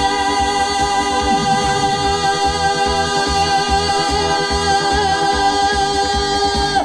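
A singer holding one long final note over the backing band and drums as the song closes; the note and the music cut off together near the end.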